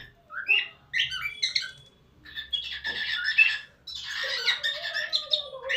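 Cockatiel calling in quick runs of short, shifting-pitch chirps, in three bouts with brief pauses between them.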